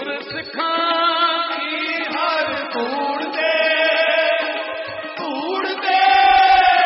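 Group of voices chanting a Sikh devotional hymn (kirtan) to harmonium, in long held notes that slide from one pitch to the next, swelling louder near the end.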